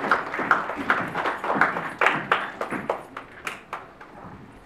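Guests clapping in scattered, uneven claps, thinning out and fading in the last second or so.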